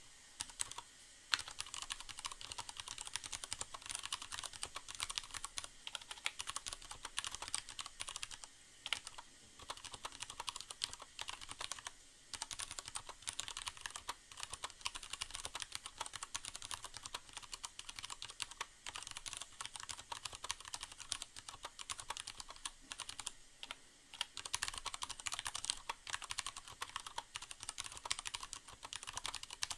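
Steady typing on a Leopold FC750R mechanical keyboard with Cherry MX Brown tactile switches: a dense run of key clacks with a few brief pauses. A soft hiss of background rain sounds lies underneath.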